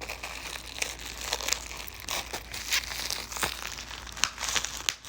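Plastic wrapping being crinkled and torn by hand as it is pulled off a new airsoft rifle upper, with irregular crackles and rustles.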